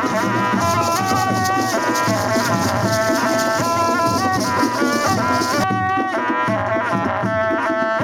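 Traditional dance music: a wavering melody over the dense shaking of dancers' ankle rattles. The rattling stops abruptly about six seconds in while the melody carries on.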